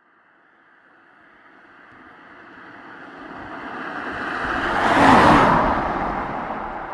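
A vehicle passing close by: a rushing sound that swells over about five seconds, peaks, then fades away.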